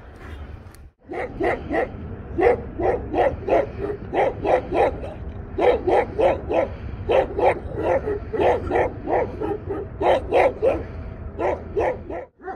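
Central Asian shepherd dog (Turkmen alabai) barking in quick runs of three to five barks with short pauses between, starting about a second in.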